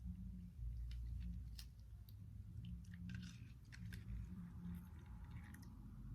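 Hands kneading and squeezing sticky homemade slime, giving a run of wet squishing, clicking and sticky popping sounds.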